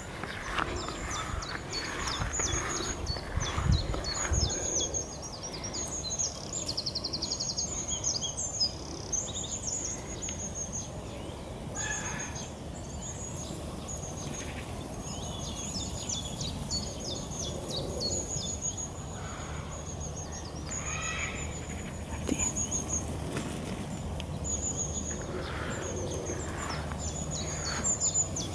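Songbirds singing: many short high chirps and whistles throughout, with one rapid trill about six seconds in. A brief low rumble comes a few seconds in.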